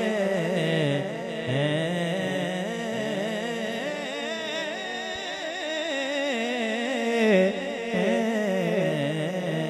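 A man singing a naat, an Urdu devotional poem in praise of the Prophet, solo into a microphone. He draws out long, ornamented notes that waver up and down in pitch.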